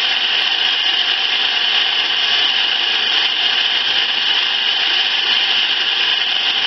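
Steady radio static hiss from an RTL2832U software-defined radio receiving around CB channel 28 (27.28 MHz), with no voice coming through as it is tuned down in small steps.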